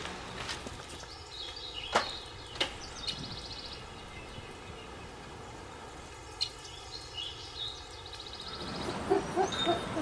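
Steady outdoor background noise with a few faint high chirps and a few sharp clicks.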